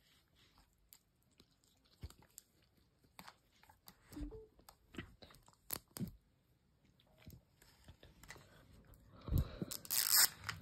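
Fingernails picking at and peeling the plastic seal on a Mini Brands capsule: scattered small clicks and crinkles, with a louder run of crinkling and tearing near the end.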